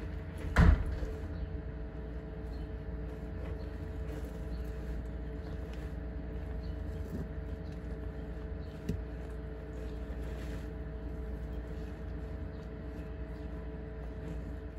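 A steady low mechanical hum with a few held tones, like a motor or fan running. A sharp knock comes about half a second in and a fainter click about nine seconds in.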